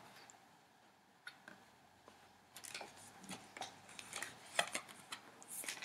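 Faint handling of a thick cardboard board book as a page is turned: light clicks, taps and short rustles of stiff card and fingers, sparse at first and coming more often in the second half.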